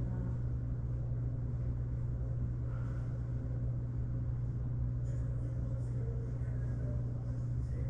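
A steady low hum, unchanging in pitch and level, from a running engine or motor.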